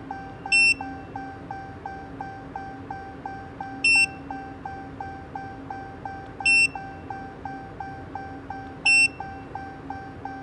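Electronic warning beeps: four short, high beeps spaced a few seconds apart, over a steady fast ticking chime about three times a second and a faint low hum.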